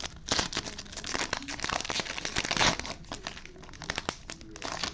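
Cellophane wrapper of a trading card cello pack crinkling and tearing as it is pulled open by hand, in a quick run of crackles with louder rips near the start and about halfway through.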